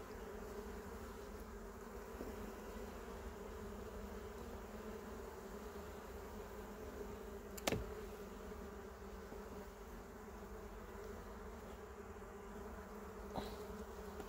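A honeybee colony humming steadily from an open hive as its frames are worked, with one sharp knock about halfway through.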